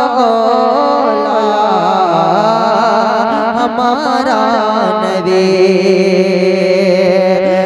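A man singing a naat, drawing out long held notes that slide slowly between pitches, with no spoken words.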